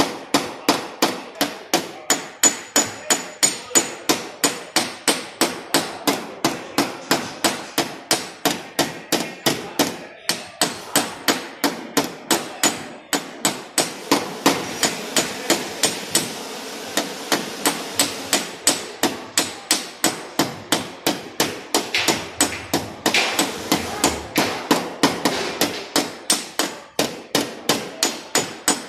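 Tap-down tool being struck against a car's sheet-metal body panel in paintless dent repair, knocking down the dent's raised edge. It gives a steady run of light, sharp metallic taps, about three a second, with a short break about ten seconds in.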